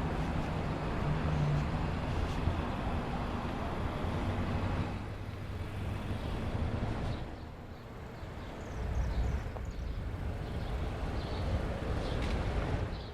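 Car driving on wet roads in the rain: steady engine and tyre noise that eases off about five seconds in and drops further around seven seconds.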